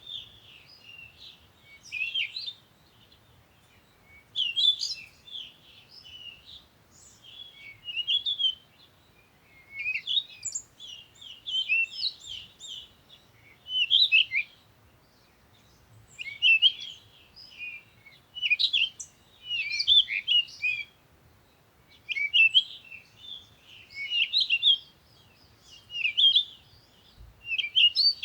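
Songbirds chirping, singing short bursts of quick high chirps and twitters that come in clusters every couple of seconds.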